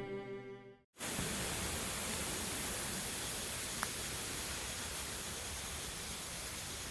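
Background cello music fades out in the first second, then a steady, even rush of falling water from a waterfall, with one faint click partway through.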